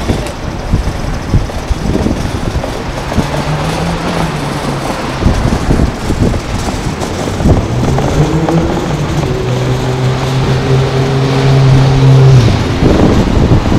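Wind buffeting the microphone, with a low droning tone that swells briefly about three seconds in and then holds steady from about eight seconds in until near the end.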